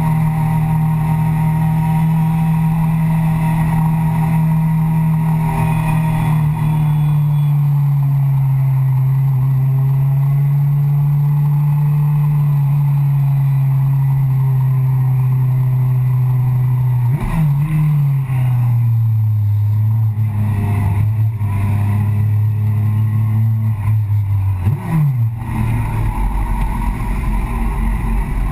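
Yamaha FZ6's 600 cc inline-four engine running at steady low revs in second gear, heard from a camera on the fuel tank. The revs rise and fall twice in the second half, and near the end the engine settles to idle in neutral.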